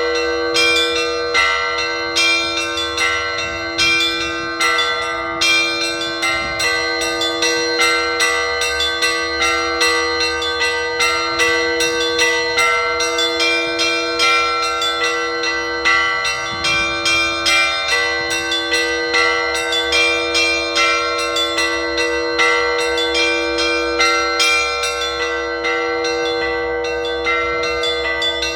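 Russian Orthodox church bells ringing together: smaller bells struck several times a second in a steady, quick rhythm over the held hum of a deeper bell.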